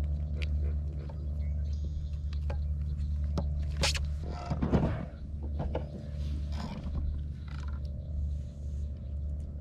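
Hands unhooking a small bass from a topwater frog lure: scattered small clicks and rustles, with a louder rustling scrape about four to five seconds in. A steady low hum runs underneath.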